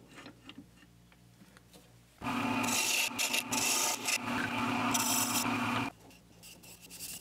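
Wooden handle spinning on a lathe with a turning tool cutting into its end: a steady scraping hiss of the cut starts about two seconds in and stops suddenly near six seconds. The lathe's faint motor hum sits under it.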